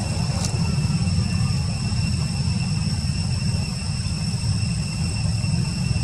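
Steady outdoor background noise: a loud low rumble with a thin, steady high-pitched whine held over it, and one brief click about half a second in.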